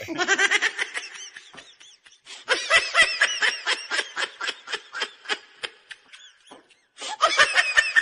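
Hearty laughter in quick, high-pitched bursts, with a brief pause near the end before a last burst.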